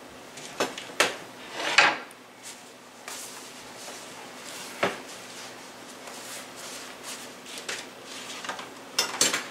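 Serving utensils and dishes clinking and scraping as chicken pieces are lifted from a casserole dish onto a platter: a few separate clinks, a short scrape about two seconds in, and a quick cluster of clatter near the end.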